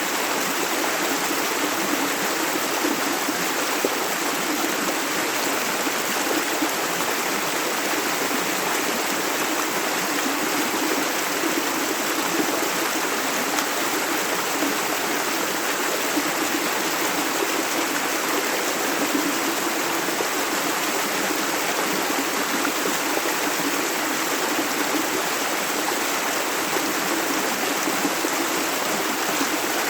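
Shallow clear river running steadily over stones: a continuous, even rush of flowing water.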